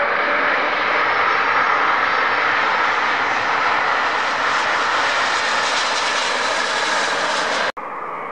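Airbus A330 twin jet engines at full noise during the landing roll with thrust reversers deployed, a loud steady rush that grows hissier a few seconds in. Near the end it cuts off abruptly to the quieter sound of a jet on approach.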